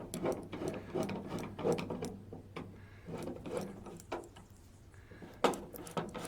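Irregular metallic clicks and clatter of hand work on a truck door latch and its hardware, with one sharper knock about five and a half seconds in.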